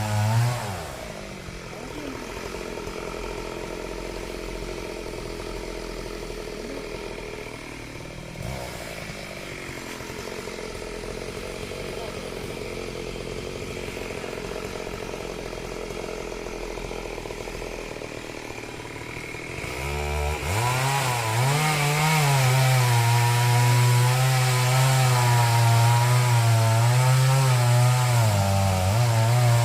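Two-stroke chainsaw. It drops from full throttle to idle in the first second, idles for about twenty seconds, then is revved up again and runs at full throttle, its pitch wavering and dipping briefly near the end as it cuts wood.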